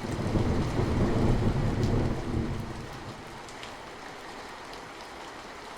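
Steady rain with a roll of thunder that swells in the first second, rumbles for a couple of seconds and dies away about three seconds in.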